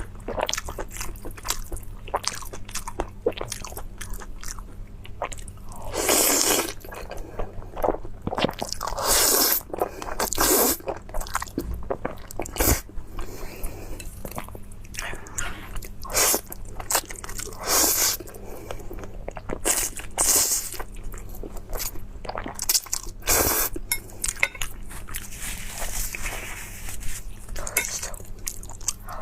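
A person eating: crunching bites and wet chewing, with many short clicks and several louder bursts about a second long.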